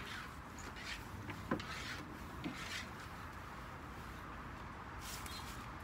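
A few brief, faint rustles and rubs scattered over several seconds as black plastic sheeting is spread and handled under a wooden table.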